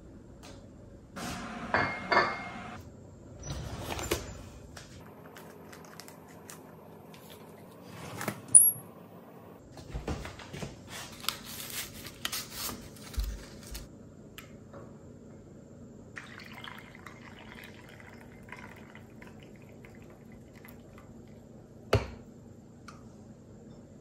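Making a cup of tea: water pouring, a foil green tea packet torn open with crinkling partway through, and a couple of sharp clinks from a ceramic cup and saucer.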